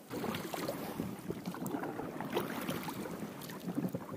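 An inflatable boat being rowed: an oar dipping and splashing, and water gurgling and slapping against the hull, with small irregular knocks.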